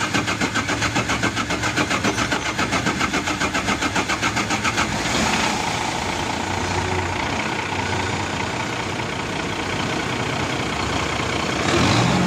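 Mitsubishi Fuso 6M70 inline-six diesel being cranked by the starter, turning over with an even beat of about five a second. About five seconds in it catches and runs steadily. This is a test start after the fuel supply pump was re-timed to cure hard starting.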